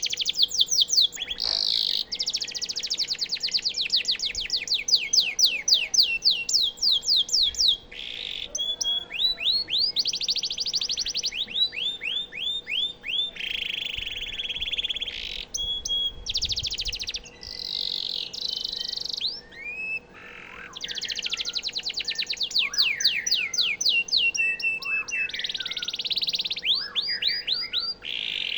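Domestic canary singing a long, continuous song of fast trills. Each run of rapidly repeated high notes lasts a few seconds before the bird switches to a new phrase.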